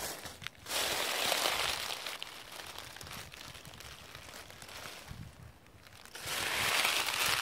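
Footsteps crunching through a thick layer of dry fallen leaves: two long, loud crunches, one about a second in and one near the end, with quieter crackling of leaves between them.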